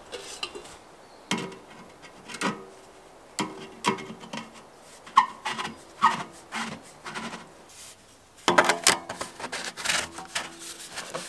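Metal stovepipe sections being pushed and twisted together by hand: short scraping, rubbing strokes about once a second with a faint metallic ring, then a longer run of scraping near the end.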